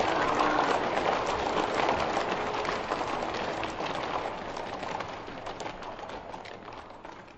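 Audience applause, played slowed down, fading steadily away.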